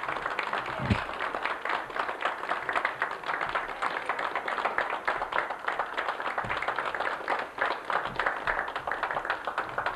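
Audience applauding, with many hands clapping steadily.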